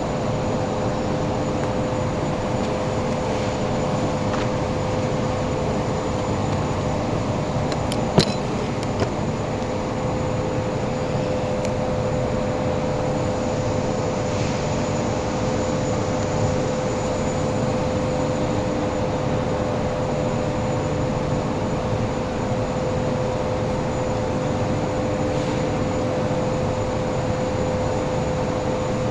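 Steady hum of a running machine motor, one even pitch throughout, with a single sharp click about eight seconds in.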